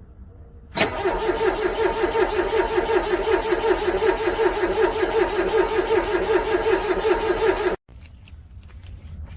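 Car engine cranking on its starter in freezing cold, turning over evenly for about seven seconds without firing, then stopping abruptly.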